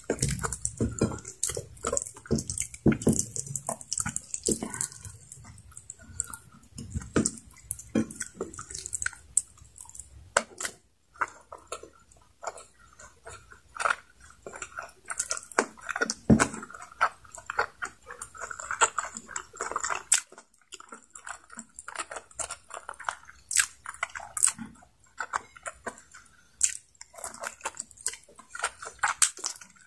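Close-miked chewing and wet mouth sounds of someone eating soft adobo-braised chicken necks and rice by hand: a run of sticky smacks and clicks, busiest in the first ten seconds and sparser after.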